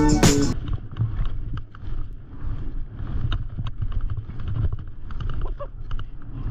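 Skis sliding and scraping over snow, with many small irregular scrapes over a steady wind rumble on an action camera's microphone. A music track cuts off about half a second in.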